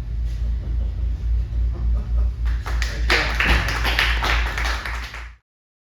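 A small audience clapping, starting about two and a half seconds in and cutting off abruptly near the end, over a steady low hum in the room.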